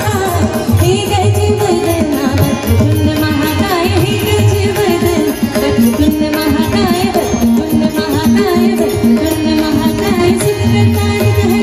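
Live Hindu devotional song (bhajan): singing into a microphone over a harmonium's held chords and a tabla playing a steady rhythm.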